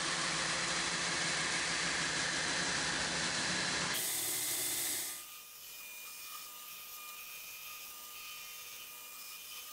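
Belt grinder grinding steel: a damascus billet is pressed against the running abrasive belt to take off its outer layer of sacrificial mild steel, a loud, even rasping hiss. After about five seconds the steel comes off the belt and the grinder runs on by itself, quieter, with a steady whine.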